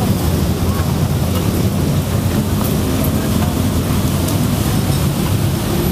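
Street-market crowd ambience: a steady low rumble with indistinct chatter of passing shoppers mixed in.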